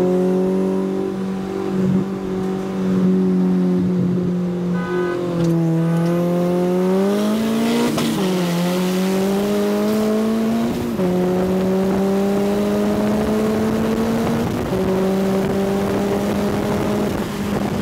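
Turbocharged four-cylinder car engine heard from inside the cabin, accelerating hard in a rolling race. The pitch holds steady, then climbs, dropping sharply at upshifts about eight and eleven seconds in, then climbs more slowly and levels off near the end.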